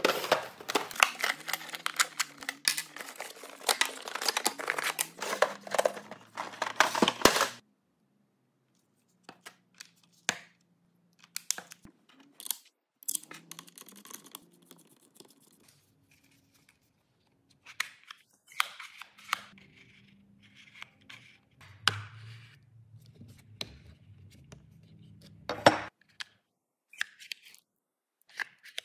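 Packaging rustling and tearing for about the first seven seconds as an edge-sanding guide is unpacked, then scattered clicks and scrapes of plastic and metal parts being handled and fitted to a sander with a hex key.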